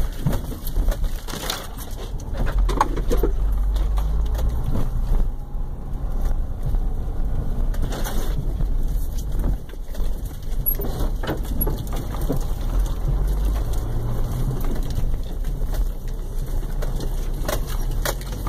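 2003 Subaru Outback heard from inside the cabin while driving a rough dirt trail: a steady deep rumble of tyres and suspension, broken by scattered sharp knocks and scrapes.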